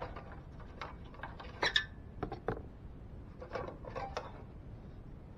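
Scattered light clicks and knocks of hand handling on a scroll saw with its motor off, as the blade is refitted: the metal table insert, the blade clamp and a plywood piece on the metal table. The loudest is a sharp knock about a second and a half in, with a few more near the end.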